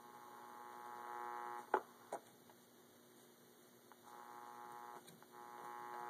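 A small AM transistor radio's speaker giving a faint, steady buzzing hum as its thumbwheel is turned. The hum fades in, cuts out with a sharp click a little under two seconds in, comes back about four seconds in, and holds steady near the end. The controls turn without scratchiness.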